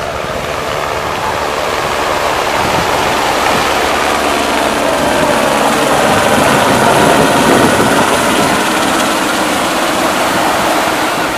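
Helibras AS350 Esquilo police helicopter flying past, with single-turbine whine and rotor noise. It grows louder to a peak about seven seconds in, then eases a little.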